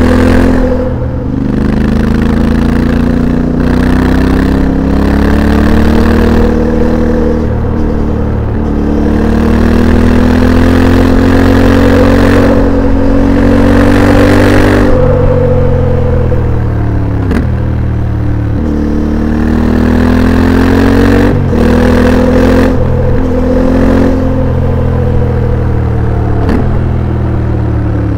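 Yamaha Ténéré 700's 689 cc parallel-twin engine through an HP Corse SP-1 titanium slip-on exhaust, heard from on board while riding. The note climbs steadily under acceleration for over ten seconds, drops off sharply about halfway as the throttle closes, then climbs again and falls near the end. Gear changes break it briefly a few times.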